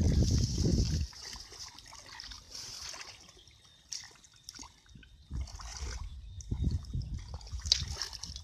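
Water splashing and trickling, with a louder rush in the first second.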